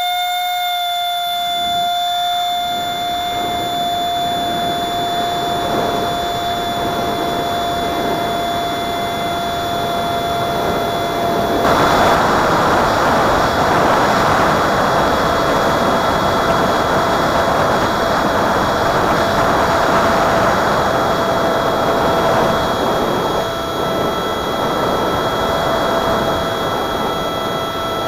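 Electric ducted fan of a Techone Neptune flying wing running at a steady high-pitched whine, heard close-up from just behind the fan. About twelve seconds in, a loud rush of wind noise joins it and stays.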